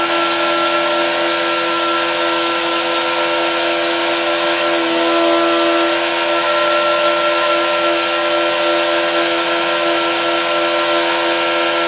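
12-volt electric water pump running steadily on a battery charger's 40-amp setting, a steady hum, with the hiss of water spraying hard from a cone spray nozzle.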